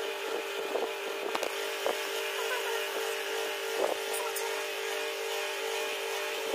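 A steady hum throughout, with a few soft knocks and rubs as hands turn over and handle a laptop.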